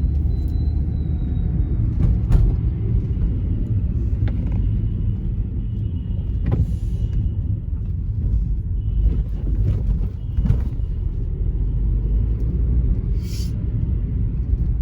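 Car on the move: a steady low rumble of engine and road noise, with a few short knocks and a brief hiss near the end.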